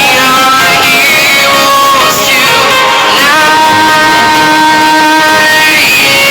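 Background music: a song with guitar and a singing voice, with one long held note in the middle.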